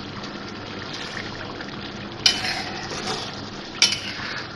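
A spatula stirring chicken pieces in an oily green masala in a black karahi, over a steady sizzle. The spatula knocks sharply against the pan twice, about two seconds in and near the end. The masala has cooked down until the oil separates.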